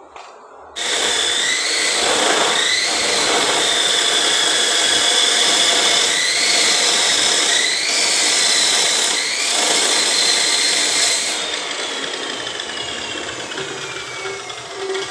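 Abrasive cut-off saw (chop saw) switched on about a second in and cutting steel pipe, a gritty grinding over the motor's whine, which sags in pitch several times as the disc bites. Near the end the saw is switched off and the whine falls steadily as the disc spins down.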